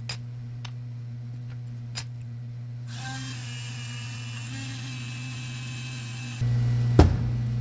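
Dremel rotary tool running with a steady hum while its wheel scrapes rust off small needle-nose pliers. A hiss of scraping comes in about three seconds in. The tool gets louder a little before the end, and there is a sharp knock about a second before the end.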